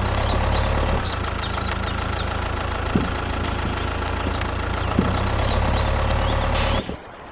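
Miniature tractor's small engine running steadily, then cutting off abruptly near the end.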